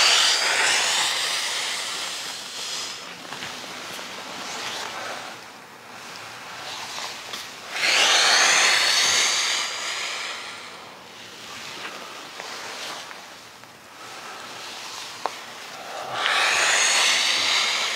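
Three long, breathy exhalations about eight seconds apart, each a rushing hiss that fades over two to three seconds: slow, deep breathing while holding a strap-assisted leg stretch.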